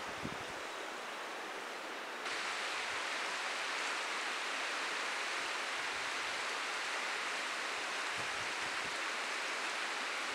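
Steady rushing outdoor ambience, like flowing water or wind through forest. It steps up louder and brighter about two seconds in, then holds even.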